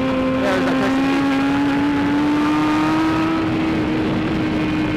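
BMW S1000RR superbike's inline-four engine running hard at high revs, its pitch climbing slowly and then holding steady, with wind and road rush over it.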